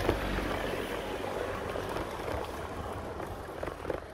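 Steady rush of wind over the microphone mixed with the rolling noise of bicycle tyres on brick paving, with a small knock near the end.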